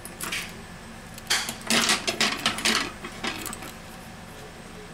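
Small metallic clinks and scraping clicks from hand tools and phone parts being handled, a few light clicks at first, then a dense flurry lasting about a second and a half.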